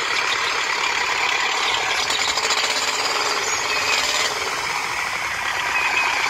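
Steady, rapid mechanical rattling from the mini toy tractors as they drive forward.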